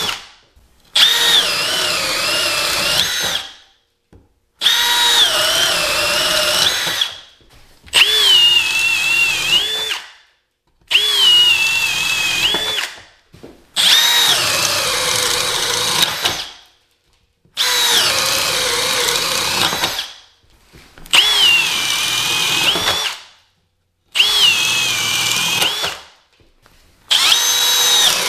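Milwaukee FUEL cordless hammer drills, M12 and M18, boring spade bits through a pine 2x4 in about nine short runs of two to three seconds each, with silent gaps between them. In each run the motor's whine sags in pitch as the bit bites into the wood, then picks up again.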